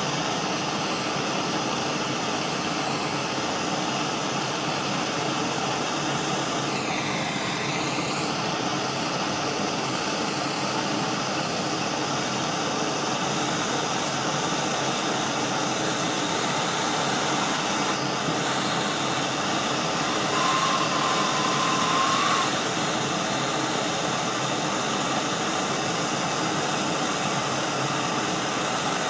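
Handheld gas torch burning with a steady hiss while its flame heats a brass fitting for soldering. A brief gliding whistle comes about seven seconds in, and a short steady whistle comes around twenty seconds in.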